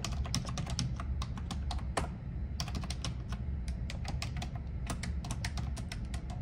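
Typing on a computer keyboard: quick, irregular key clicks with a short pause about two seconds in.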